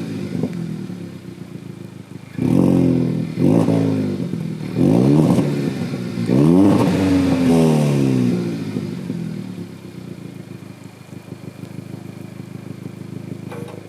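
Stock 2019 Kia Ceed GT's 1.6-litre turbocharged four-cylinder engine revved in four quick throttle blips, the last held longer, with the revs falling back each time, then settling to a steady idle.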